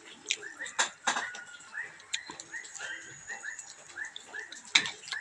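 Small animal calling over and over, short high calls about three a second, among clicks and taps of dishes and eating; a sharp knock near the end is the loudest sound.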